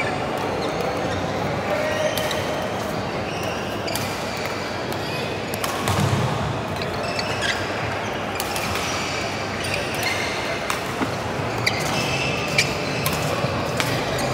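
Badminton hall: scattered sharp clicks of rackets hitting shuttlecocks and short squeaks of shoes on the court floor, over a steady murmur of voices in a large reverberant room.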